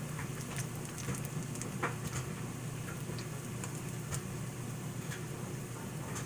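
Potato pancakes shallow-frying in hot oil in a pan: a steady sizzle with scattered pops and crackles.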